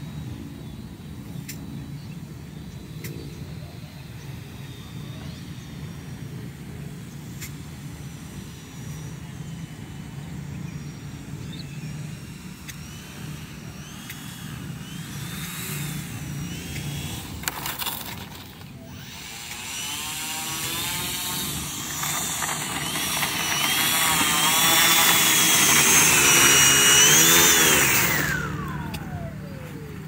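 Brushless electric motor and propeller of a small foam RC plane (2208 1000kv motor) whining, faint at first, then growing louder as the plane flies in low, the pitch wavering with throttle changes. Near the end the whine glides down in pitch and dies away as the motor is throttled back for landing.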